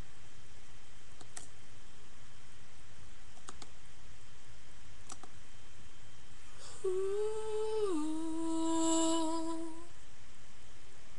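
A man humming unaccompanied over steady microphone hiss. After a few faint clicks, he hums one held note about two thirds of the way in, which drops to a lower note and holds for about two seconds before stopping.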